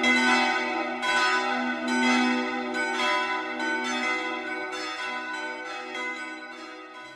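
Church bells ringing: overlapping strikes about twice a second over a long, steady hum, fading out toward the end.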